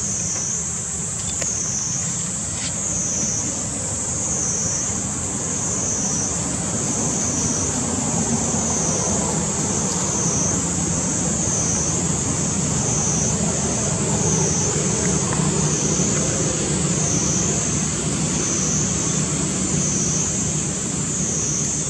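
Steady outdoor background: a continuous low rumble under a high-pitched buzz that swells and fades about once a second.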